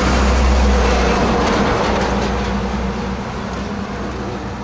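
Road traffic: a heavy vehicle's engine and tyres passing close by, loudest about half a second in and then slowly fading.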